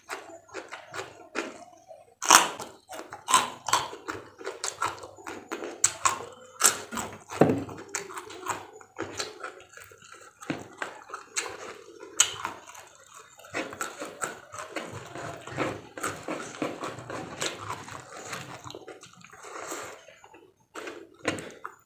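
Close-miked crunching and chewing of a meal of raw vegetables and fried tempeh: many sharp, irregular crunches mixed with wet mouth sounds.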